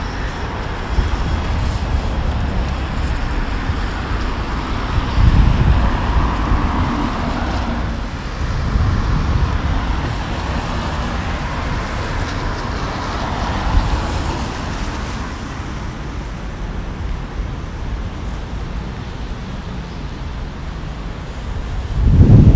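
Road traffic on a wet road: cars swishing past, swelling and fading twice in the first half over a steady traffic hum. Wind buffets the microphone in gusts, strongest near the end.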